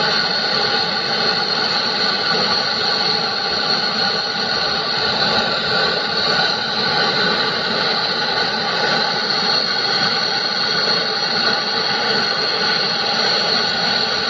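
Gas brazing torch flame running with a steady, even hiss, heating a steel tube as a bronze rod is melted into the joint.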